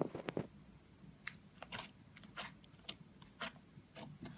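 Pink slime with micro floam beads being stretched and squeezed by hand: faint, irregular crunchy clicks and pops, roughly two a second.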